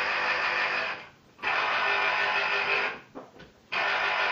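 Small electric citrus juicer's motor whirring as an orange half is pressed onto the reamer. It stops briefly twice, about a second in and about three seconds in, and starts again each time.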